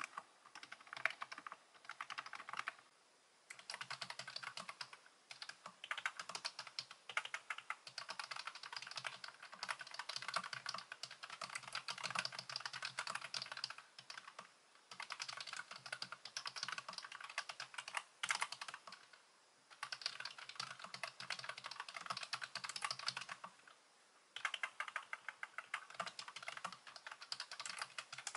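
Fast typing on a white low-profile computer keyboard: rapid runs of key clicks lasting several seconds, broken by short pauses.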